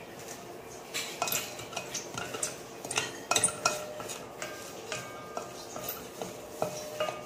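Wooden spatula stirring whole spices (cinnamon bark and cloves with a few rice grains) as they dry-roast in a stainless steel pan: scraping and knocking against the metal, which rings after each knock. The knocks begin about a second in.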